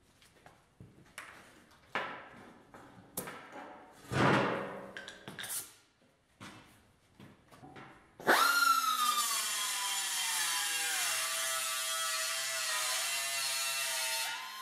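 Light knocks and clatter of a sheet-steel floor-pan panel being handled at a metal bench. About eight seconds in, a small disc grinder starts with a sudden high whine and hiss; the whine falls in pitch as the abrasive disc bites into the edge of the panel and keeps grinding steadily. It eases off and rises again briefly near the end.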